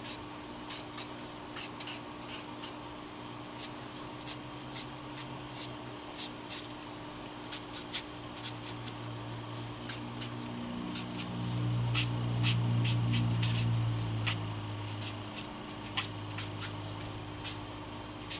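Tombow brush marker flicked across paper in short strokes, a run of light, quick ticks and scratches. Under it a steady low hum grows louder for a few seconds in the middle.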